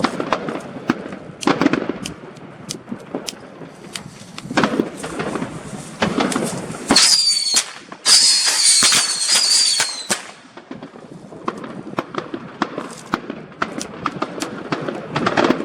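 Red Lantern Whistling Jacks firework going off: a run of sharp pops and crackles, with a loud, shrill whistle from about 7 to 10 seconds in that dips in pitch several times.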